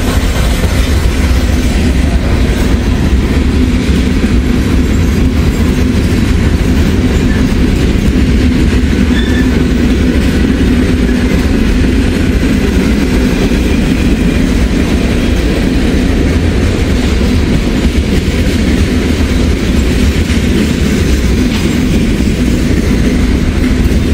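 Freight cars of a passing train rolling by at close range: a steady, loud rumble of steel wheels on the rails.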